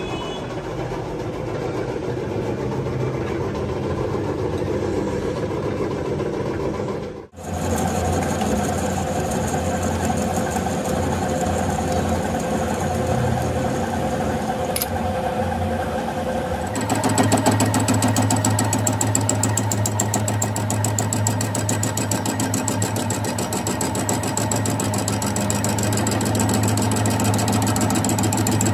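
Old engine lathe running with a crankshaft spinning in its chuck: a steady motor and gear-train hum. It drops out briefly about a quarter of the way in, then changes to a louder, busier hum a little past halfway.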